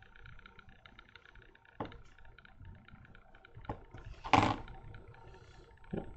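Small handling noises of hobby tools on a cutting mat: four separate short taps and clicks, the loudest about two-thirds of the way in, over a steady faint room hum.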